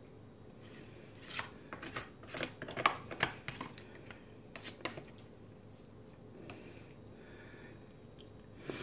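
Metal fork scraping and clicking against an aluminium foil lasagna tray as a piece is cut and scooped, with a cluster of sharp clicks between about one and four seconds in, a few more soon after, and another click near the end.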